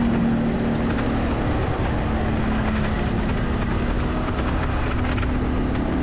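Wind buffeting the microphone of a moving rider, with a steady low hum underneath.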